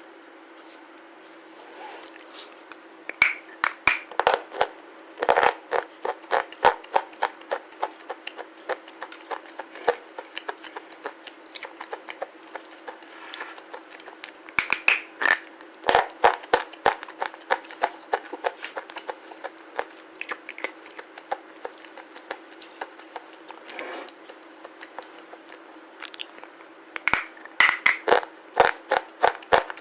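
Close-miked crunching of a black slate bar being bitten and chewed: bursts of sharp, rapid crunches a few seconds in, around the middle and near the end, with sparser chewing crunches between, over a faint steady hum.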